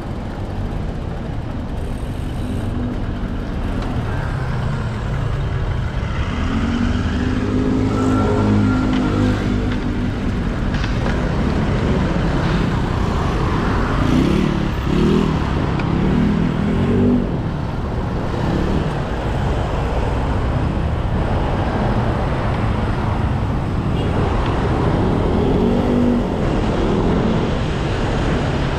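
Street traffic: motor vehicle engines passing, one about a third of the way in, more around the middle and another near the end, over a constant low rumble.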